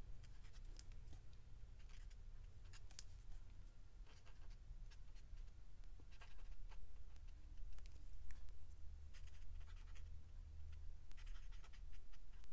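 Copic alcohol marker tip dabbing and scratching on paper: faint, irregular little taps and short strokes as dots and zigzags are drawn.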